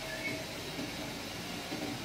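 CNC oscillating knife cutting machine running as its head travels over a 50 mm polyester fibre felt board: a steady mechanical hum and hiss, with low motor tones that come and go as the head moves.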